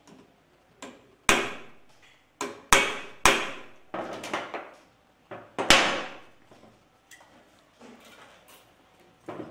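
Hammer blows on metal while a mini brass cannon's carriage is being assembled: four sharp, ringing strikes with a few lighter taps between them.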